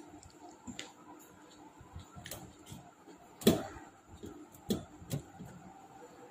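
Close-up eating sounds: chewing and small wet mouth and hand clicks. About three and a half seconds in there is one louder, short sound, followed by two softer knocks.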